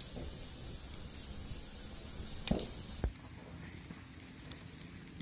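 Steam hissing steadily from an aluminium idli steamer over a wood fire, with two dull knocks about halfway through, after which the hiss grows fainter.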